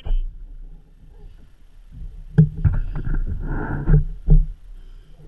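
Several knocks and thumps on a kayak, about halfway through and again near the end, as a large lingcod is hauled aboard.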